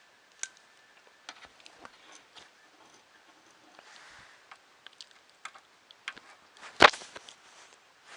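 Small parts being handled during hand assembly of a switch with small screws or a nut and bolt: scattered light clicks and taps, with one much louder sharp clack about seven seconds in.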